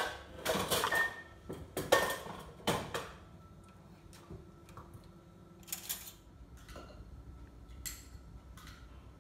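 Ceramic bowls knocking and clinking as they are moved on a tiled counter. A few sharp knocks come in the first three seconds, then fainter scattered clicks.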